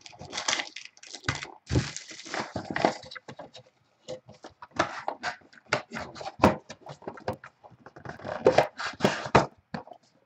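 Foil-wrapped trading card packs and a cardboard hobby box being handled: irregular crinkling and rustling with scattered sharp taps and light knocks as the packs are pulled out and stacked.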